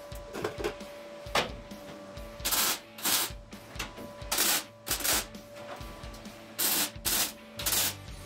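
MIG welder tack-welding a steel body panel seam: seven short welding bursts of about a third of a second each, starting about two and a half seconds in, with a few light clicks before them.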